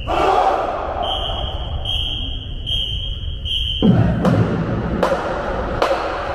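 A whistle blown in four short, high blasts, then about four seconds in the marching band comes in with drums and horns on a steady beat.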